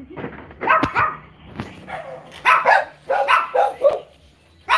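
A small dog yapping in short, sharp barks: a quick pair about a second in, then a run of about six between two and a half and four seconds.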